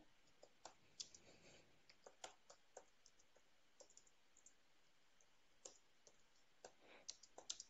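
Faint computer keyboard typing: irregular single keystrokes, with a quick run of keys near the end.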